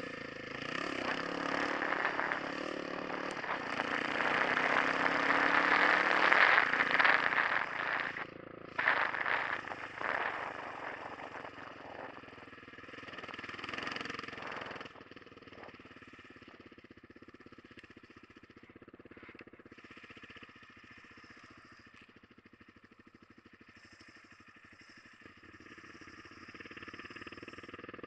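Dual-sport motorcycle engine pulling up a dirt road, its pitch rising slowly over the first several seconds under a loud rush of wind on the helmet microphone. From about halfway it settles to a much quieter, steady low-rev running.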